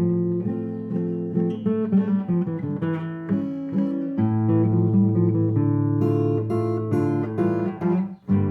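Solo acoustic guitar playing a waltz: a plucked melody over bass notes, with a brief break just before the end.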